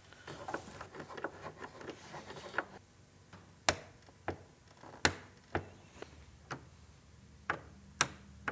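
Small torque wrench with a Torx bit tightening the T30 screws in a motorcycle fairing's speaker well to 25 inch-pounds. A run of soft, rapid ratchet ticks comes first, then sharp single clicks about every half second to a second.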